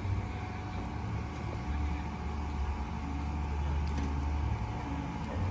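A steady low rumble with faint background hum.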